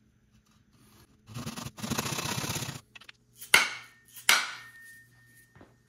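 A metal-backed handsaw cutting through a small wooden block held in a vise: a quick run of rasping strokes for about a second and a half. Then two sharp knocks, the second leaving a short metallic ring.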